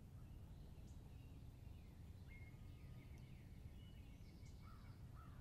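Near silence in spring woods: faint, scattered songbird notes, thin whistles and short chirps, over a low steady background rumble.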